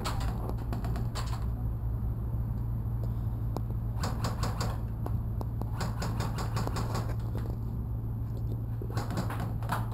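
Several short bursts of rapid clicking from airsoft guns firing on full auto, the longest about four seconds in and near the end, over a steady low hum.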